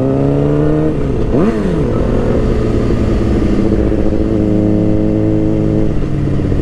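Motorcycle engine accelerating, its pitch climbing, then dropping sharply and rising again about a second and a half in as the rider shifts up a gear. It then holds a steady pitch while cruising.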